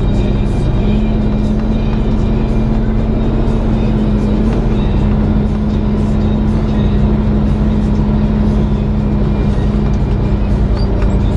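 Semi truck's diesel engine droning steadily in the cab while cruising on a road, an even low hum with a slight rise in pitch about a second in.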